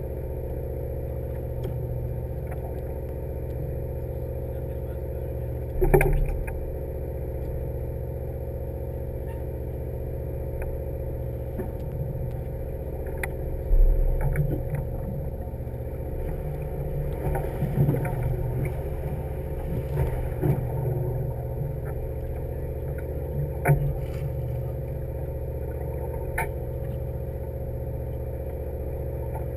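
A fishing boat's engine running steadily, an even low drone, with a few sharp knocks on top, the loudest about six and fourteen seconds in.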